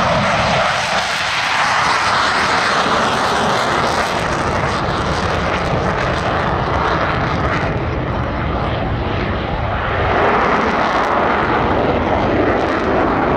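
Aircraft engine noise: a loud, steady rush that holds throughout, its hiss dulling somewhat about halfway through.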